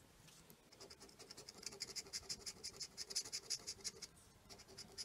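A scratcher tool scraping the coating off an instant lottery scratch ticket in quick, short strokes. It starts about a second in, pauses briefly near four seconds, then resumes.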